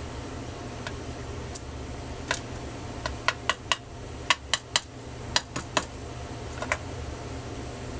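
A quick series of about a dozen sharp little metal clicks and taps, the pins and springs of a pin-tumbler lock core being taken out and set down. A steady low hum runs underneath.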